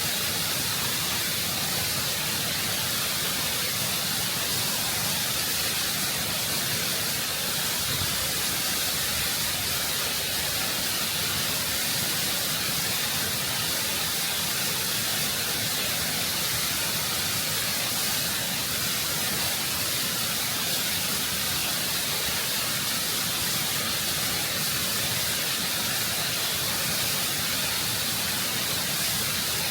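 Close-up waterfall: water rushing and cascading over rock in a steady, full hiss that does not change.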